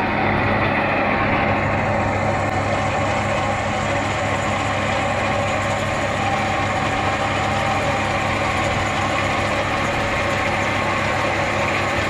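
An engine running steadily with an even hum.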